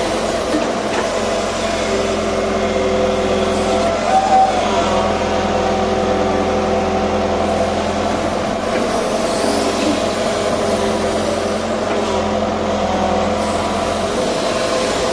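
JCB backhoe loader's diesel engine running steadily under load as its hydraulics work the digging arm, with a brief higher-pitched whine about four seconds in.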